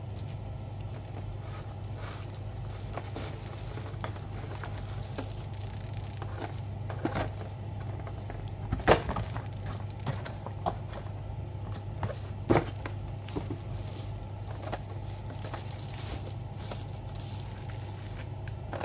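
Keyboard accessories and their packaging being handled: crinkling and rustling, with a few sharp knocks, the loudest about 9 and 12.5 seconds in, over a steady low hum.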